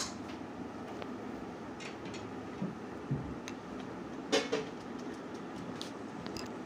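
Low steady hiss of a pan of dal cooking on a gas stove, with a few faint knocks of a metal ladle against the aluminium pan, the loudest about four seconds in.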